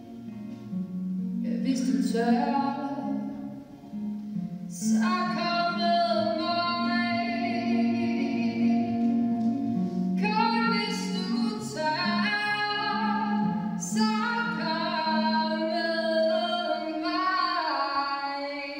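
A woman singing while playing an acoustic guitar, her sung phrases entering about one and a half, five, ten and fourteen seconds in over continuous guitar chords, with long held notes.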